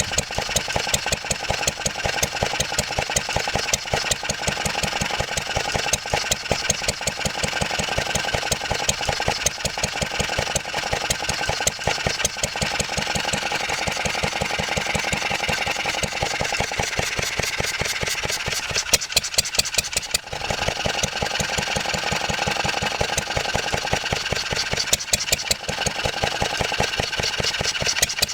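1954 Wolseley WD8 stationary engine running steadily, each firing stroke a distinct, evenly spaced beat.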